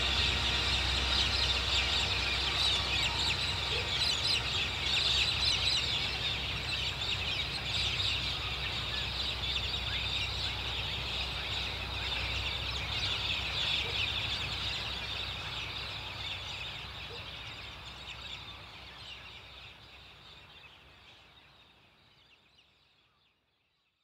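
A large flock of birds calling all at once in a dense, raucous chorus, fading out over the last several seconds.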